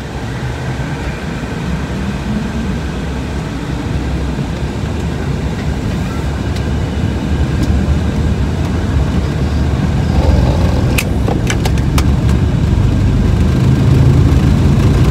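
Cockpit noise of an Embraer Legacy 600's twin turbofan engines at takeoff power during the takeoff roll, growing steadily louder as the jet gathers speed down the runway. A short cluster of sharp clicks comes about eleven seconds in.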